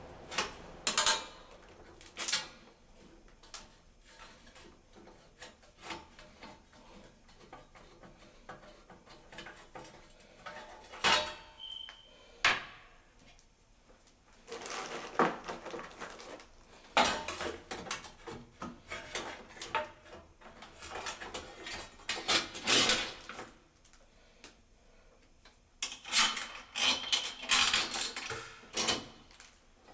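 Metal hardware being handled and fitted by hand: irregular clinks, clicks and knocks, with a few denser clusters of scraping handling noise.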